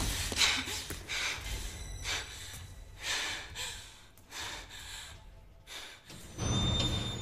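A woman's heavy, frightened breathing and gasps, coming in repeated breaths, over tense film-score music.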